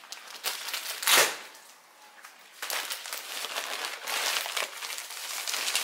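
Plastic courier mailer bag being torn open by hand: a sharp rip about a second in, then continuous crinkling and rustling of the plastic as it is pulled apart.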